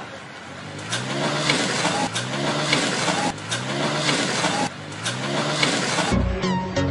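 Motorcycle engine revved over and over, each rev a short rise in pitch, over a loud rushing noise. Music with plucked guitar cuts in abruptly near the end.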